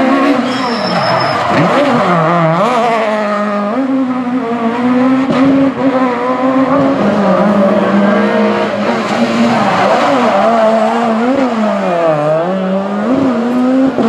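Rally cars' naturally aspirated four-cylinder engines, a Peugeot 306 Maxi and then a Peugeot 207 S2000, running hard through a tight corner. The engine pitch dips sharply as they brake and downshift, then climbs in steps through the gears as they accelerate away.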